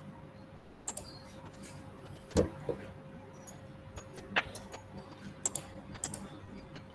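Computer keyboard keys clicking irregularly, a few presses at a time, with a louder knock about two and a half seconds in.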